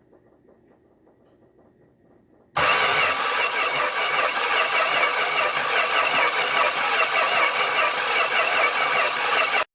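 1966 Dodge Dart GT's 225 slant-six engine cranking over on its starter as it is tried for a start with the newly fitted cap, rotor, wires and cleaned plugs. It comes in suddenly and loud about two and a half seconds in, after faint clicking, and cuts off abruptly just before the end.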